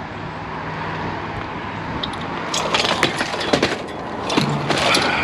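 Scrap items being picked up and tossed down, clattering and banging in a quick run of knocks through the second half, over the steady low hum of an idling vehicle.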